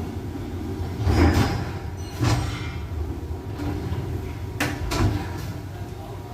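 A few short knocks and scrapes, like doors or fixtures being handled, over a steady low hum.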